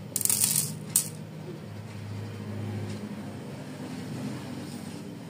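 Magnesium sulfate crystals poured from a small bottle cap rattling onto a digital scale's metal tray for about half a second, with one last crystal clicking down about a second in. After that only a low steady hum remains.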